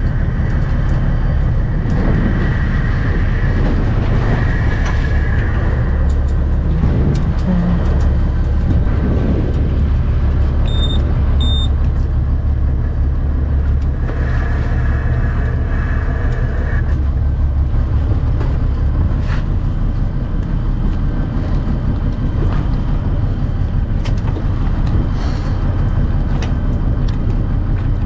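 A fishing boat's engine running with a steady low hum. Two short high electronic beeps sound about eleven seconds in.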